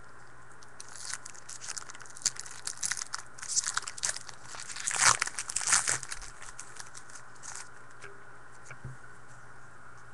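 Foil trading-card pack wrapper being torn open and crinkled: a run of crackly rustling over several seconds, loudest about halfway through.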